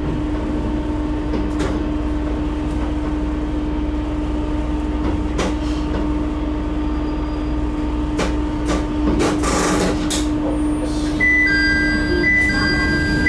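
A 9640-series diesel railcar slows to a stop at a station: a steady running hum with a few wheel clicks, then a short hiss of the air brakes as it halts. Near the end a two-note electronic chime starts repeating.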